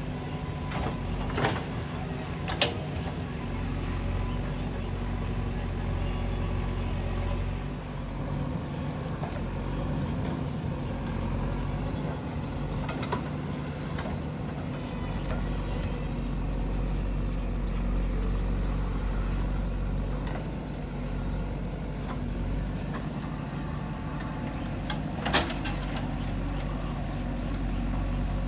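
JCB 3DX backhoe loader's diesel engine running steadily under working load while it digs, with a few sharp knocks from the working machine, the loudest two about two and a half seconds in and near the end.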